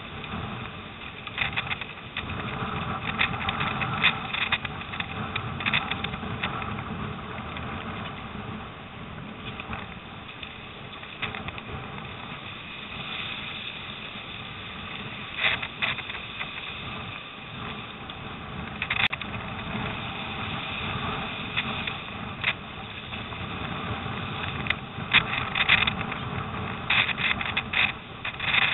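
Storm wind rumbling on the microphone, with irregular splashes of choppy, breaking waves against a surfski's hull.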